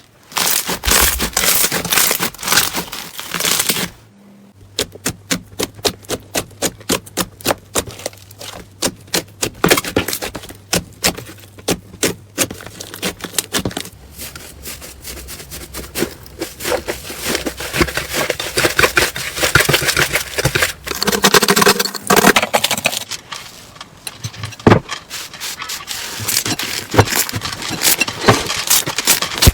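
Slime being squeezed, poked and stretched by hand, giving a dense string of crackling pops and clicks. About a third of the way in the pops come in a regular run of about two a second.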